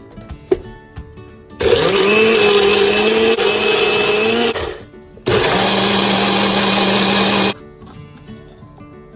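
NutriBullet personal blender motor running in two bursts, about three seconds and then about two seconds, blending fruit and yogurt into a smoothie; a sharp click comes just before. Background music plays throughout.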